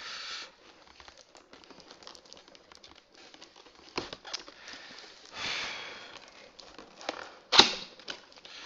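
A cardboard toy box being handled and turned on a table: scattered rustling and scraping of cardboard and packaging, with a few sharp knocks, the loudest near the end.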